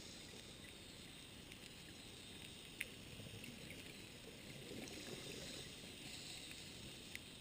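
Faint underwater ambience on a reef dive: a steady hiss with light crackling and a few sharp isolated clicks, the loudest about three seconds in. A somewhat louder stretch of rushing noise comes about five seconds in.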